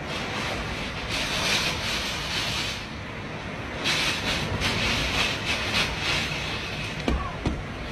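Typhoon wind rushing and gusting, swelling twice into louder surges, with a few short knocks near the end.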